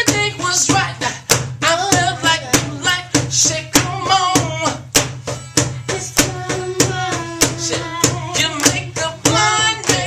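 Live soul and R&B band playing: a lead vocal sings a wavering melody over a steady drum beat, bass and guitar.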